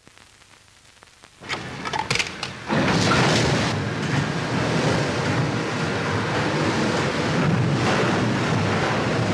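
A few sharp knocks and clatters, then a steady loud rushing noise that sets in suddenly just under three seconds in.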